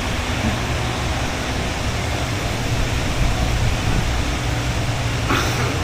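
Steady low rumble and hiss of machinery noise, with a brief sharper noise near the end.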